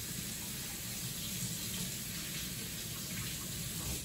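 Kitchen sink faucet running steadily while hands are washed under the stream.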